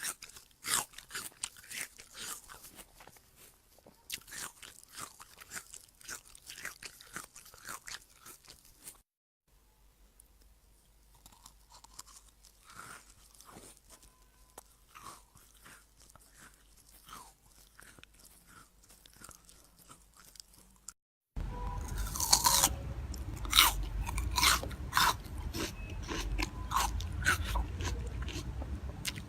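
Close-miked chewing of crunchy food: dense crackling bites and crunches in three back-to-back clips. The last clip is clearly louder than the first two.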